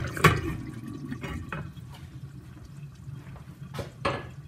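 A stainless-steel pot lid clinks as it is set onto the pot just after the start. The stew then simmers under the lid, with a few faint ticks and a louder knock near the end.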